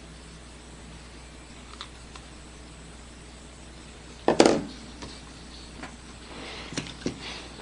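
Dip pen nib scratching on paper in short strokes, with a few small ticks as the nib touches down. One loud knock about halfway through.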